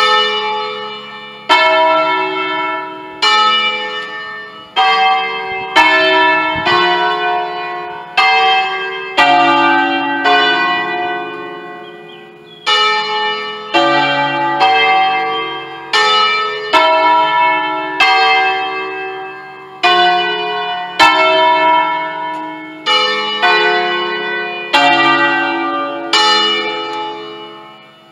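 Peal of electrically swung church bells from a five-bell ring in D cast by Pruneri in 1953. Strikes of different pitches come about once a second, each ringing on into the next.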